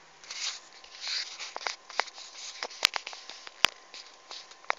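Close handling noise of a plastic set square on paper: brushing at first, then a scatter of light clicks and taps, with two much louder sharp clicks a little past the middle.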